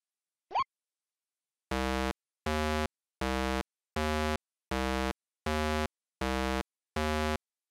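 Chiptune-style synthesized sound effects: one short rising blip, then eight identical short buzzy tones at an even, slow pace, about three every two seconds.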